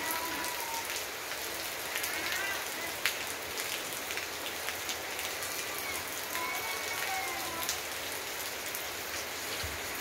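Steady rain falling, with scattered individual drops striking close by and one louder drop hit about three seconds in.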